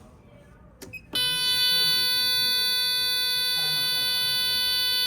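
A click, then about a second in a Dahua conventional fire alarm system sets off a loud, steady buzzer tone that holds without wavering.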